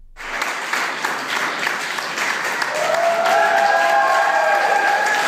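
An audience applauding in a darkened screening room, the clapping starting abruptly and growing louder. From about three seconds in, long held whoops rise above it.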